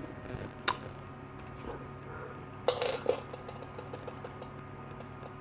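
Small clicks and clinks of a cordless rotary tool's collet parts being handled and swapped: one sharp click under a second in and a short cluster of clicks around three seconds in.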